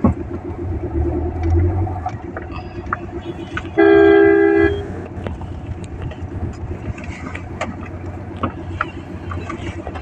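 Steady road and engine noise inside a moving Suzuki car's cabin, with small knocks and rattles. About four seconds in, a vehicle horn sounds loud for about a second.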